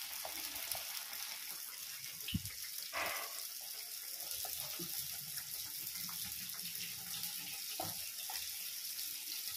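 Kajjikayalu, half-moon stuffed maida pastries, deep-frying in hot oil in a kadai: a steady sizzle of bubbling oil, with a few faint pops and clicks.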